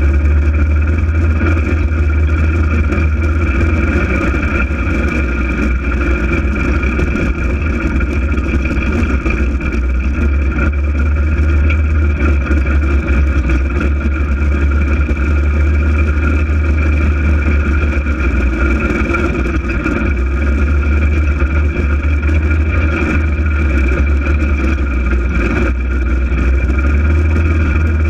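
Polaris RZR 800 side-by-side's twin-cylinder engine running at a fairly steady pace under way, with a deep drone and a steady high whine.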